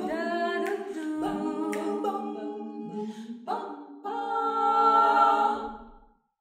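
Female vocal quartet singing a cappella in close harmony, swelling to a loud held chord about four seconds in that fades away, leaving a short silence near the end.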